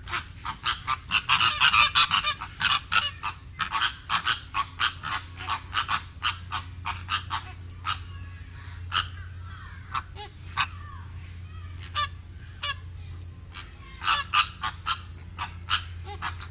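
Geese honking in quick succession, sparser for a few seconds past the middle and busier again near the end, over a steady low hum.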